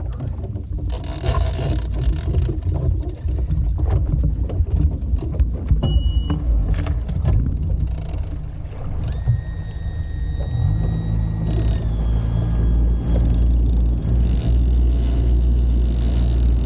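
Outboard motor of a small center-console boat running, with knocks and clatter of gear being handled in the first half. About ten seconds in the motor's hum steps up and holds steady as the boat gets under way, with a high whine for a few seconds around that change.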